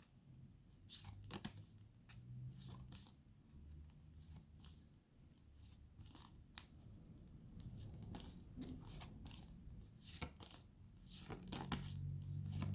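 Faint clicks and rustles of a pack of flashcards being flipped through quickly by hand, each card turned with a short click at an irregular pace.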